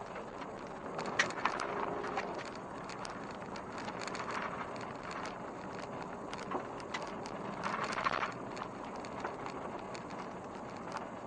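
Car driving over a washboard gravel road: steady road noise with many small knocks and rattles from the corrugations, jolting harder about a second in and again about two-thirds of the way through.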